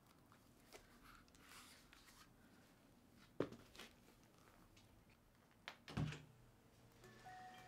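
Near silence with a few faint, soft knocks and thumps, the clearest about three and a half seconds in and again about six seconds in. Soft music begins just before the end.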